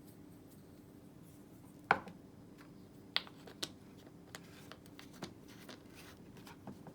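A few light clicks and knocks, about five spread over several seconds, the loudest about two seconds in: small kitchen items handled as salt is added to a dish of sauce.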